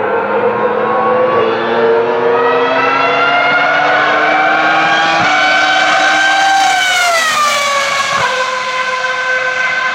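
Ferrari racing car engine at high revs under hard acceleration. Its pitch climbs, steps once about five seconds in as it shifts gear, then falls away as the car passes by about seven seconds in.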